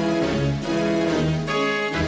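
Cartoon soundtrack music: a melody of held notes that change about twice a second, with a brighter high line coming in about one and a half seconds in.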